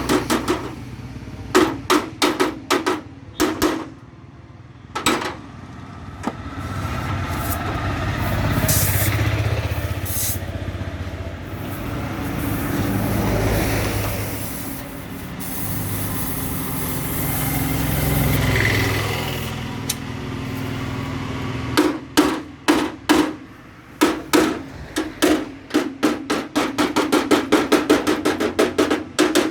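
Hammer blows on metal in quick runs, a ringing clang each time: a few at the start, then a long run over the last several seconds at about four blows a second. In between comes a steady low rumble that swells and fades.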